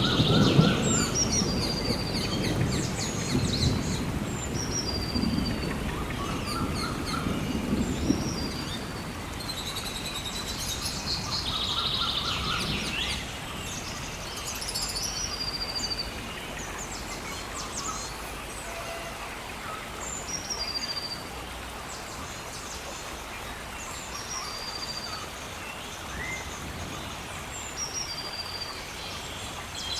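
Rainforest ambience: birds calling again and again with short high notes over a steady hiss like rain. A low rumble sits underneath at first and fades out by about eight seconds in.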